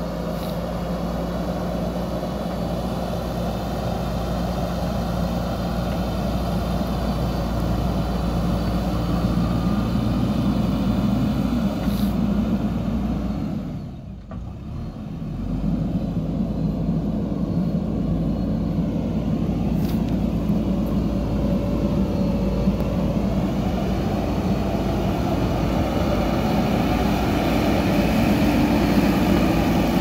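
JCB backhoe loader's diesel engine running under load as the machine drives and pushes soil, steady throughout except for a brief drop in level about halfway through.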